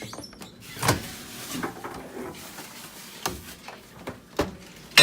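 Microwave oven being shut and started: a few knocks and clunks over a steady running hum, with a loud clunk and a short tone near the end.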